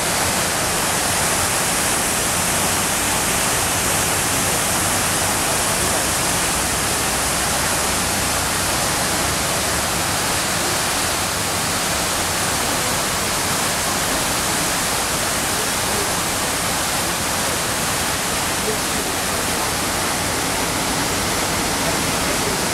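Steady rush of the World Trade Center Memorial South Pool waterfalls, water falling in sheets down the pool's walls into the basin: an even, unbroken hiss.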